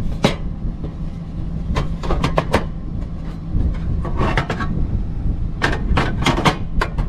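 Car engine idling with a steady low rumble, keeping the battery charged while it runs a 12-volt camp light. Over it come scattered sharp knocks and clacks, in small clusters.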